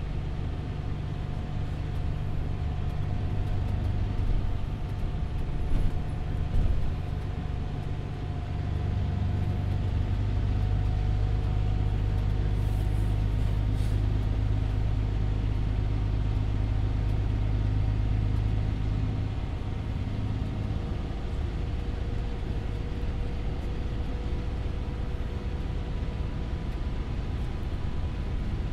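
Volvo 8900LE city bus driving, heard from inside the passenger cabin: a steady low engine drone with a faint whine above it. A few knocks come about four to seven seconds in. The drone grows heavier about a third of the way through and eases off again about two-thirds through, as the bus pulls and then lifts off.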